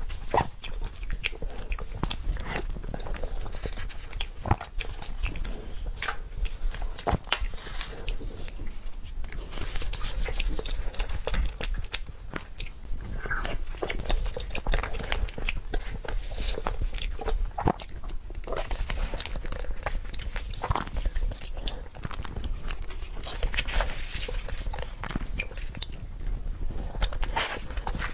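Close-miked chewing and eating of a cream-filled chocolate cupcake, with wet mouth clicks and smacks throughout.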